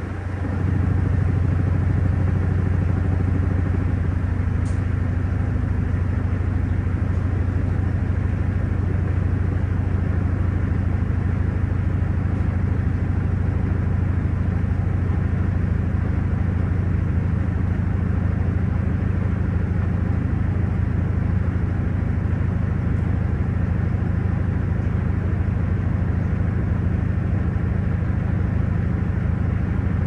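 Panasonic top-loading washing machine on its spin cycle, the tub turning fast: a steady, even motor hum with a strong low tone.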